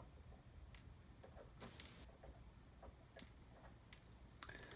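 Faint, scattered small clicks of steel tweezers picking tiny caps and springs out of a Medeco Keymark SFIC core's pin chambers and setting them down on the bench. One click is louder, about a second and a half in, and a few more come close together near the end.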